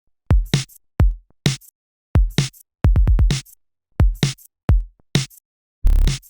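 Electronic music: a sparse drum-machine beat of deep kick drums that drop in pitch and sharp snappy hits, with dead silence between hits. A quick roll of hits comes about three seconds in, and a noisier hit comes near the end.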